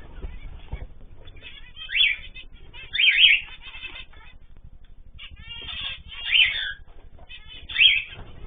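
Pet cage birds (cockatiels, zebra finches and canaries) calling together: quick faint chirps throughout, with four louder rising calls spread through.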